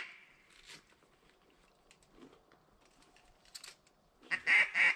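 A quick run of loud, evenly spaced duck quacks beginning near the end, after a few seconds of faint marsh background with a few small clicks.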